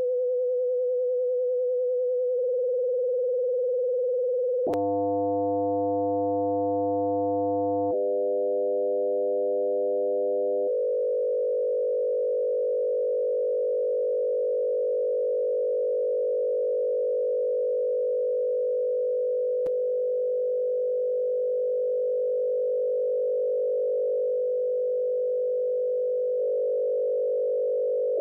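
Synthesized 500 Hz sine tone from the BeeOne brainwave generator, frequency-modulated. As the FM speed and depth are raised, the single steady tone turns into a cluster of closely spaced tones, with a click about five seconds in. The cluster changes abruptly twice more and then holds steady.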